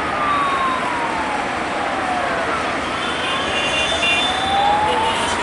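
A siren wailing, its pitch falling slowly and then rising again, over a steady noise of passing train and road traffic.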